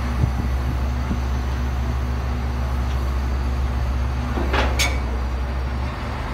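Heavy diesel engine of a Komatsu PC400 excavator running steadily. About four and a half seconds in come two sharp clanks in quick succession.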